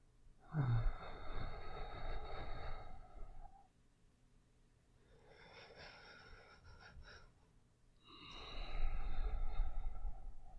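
A man breathing slowly and heavily, tired, close to the microphone. There are three long breaths: a loud sigh about half a second in, a quieter breath in the middle, and another loud breath out near the end.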